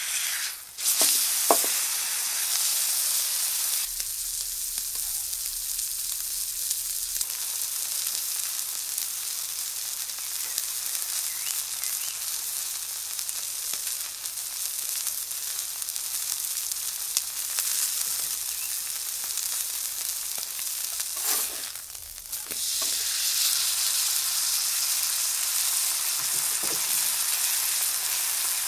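Ribeye steak sizzling steadily as it sears on a flat steel griddle plate. About a second in there are a few sharp clicks of the metal spatula, and the sizzle dips briefly twice.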